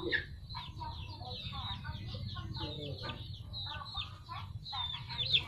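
Poultry calling: many short, high, falling peeps overlapping without pause, over lower clucking calls, with a steady low hum underneath.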